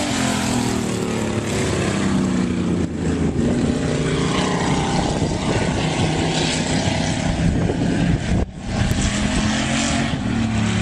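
Dirt-track stock car engine running steadily as the car laps the oval, with a brief dip about eight and a half seconds in.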